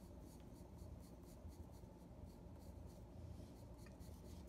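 Pencil scratching on drawing paper in short, quick strokes, about three a second, faint, as the drawing is darkened.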